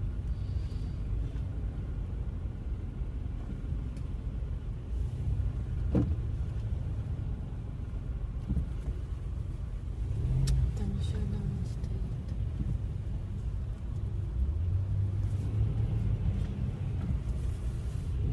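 Low, steady road and engine rumble of a car driving slowly, heard inside the cabin, with a single sharp knock about six seconds in.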